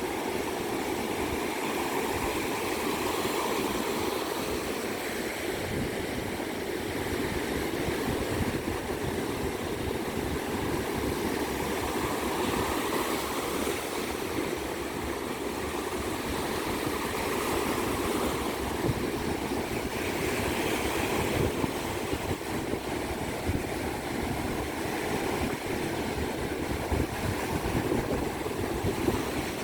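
Ocean surf washing onto a beach: a steady rush of waves, swelling and easing every few seconds.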